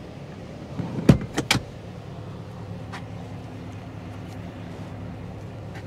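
Second-row seat of a Chevrolet Suburban clunking as it latches back upright: three sharp knocks in quick succession about a second in, over a low steady hum.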